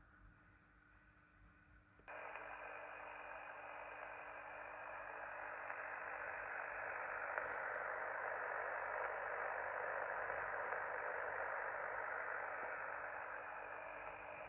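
Homebuilt SSB receiver with a UL1042 demodulator, tuned to the 14 MHz band in USB, hissing through its loudspeaker. At first there is only its own faint internal noise. About two seconds in, a much louder, steady band-noise hiss switches on abruptly as the antenna is connected, its pitch held to the narrow voice range by the receiver's filter.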